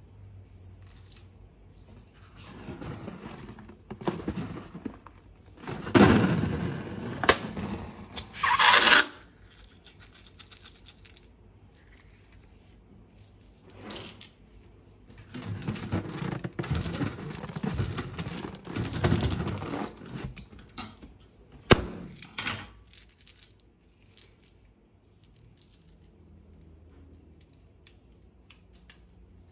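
Slime-making handling noises: balloons and plastic piping bags being cut open and squeezed out, with scraping, in two busy stretches and a single sharp click about three-quarters of the way through.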